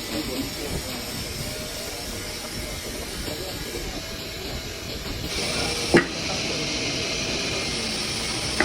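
Steady hissing noise that grows louder about five seconds in, with one sharp knock about a second later.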